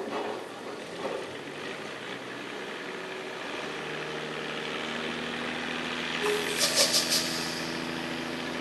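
Logging truck's diesel engine running steadily, its hum coming in a few seconds in and growing gradually louder. Near the end, four quick sharp clicks.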